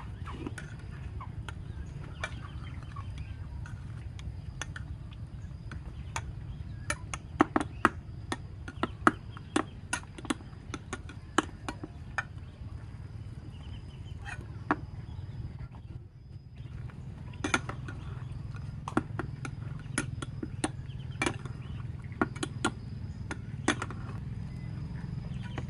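Metal ladle clicking and clinking against the pot rim and a ceramic bowl as broth is scooped and poured, in two bursts of rapid clicks, over a steady low rumble.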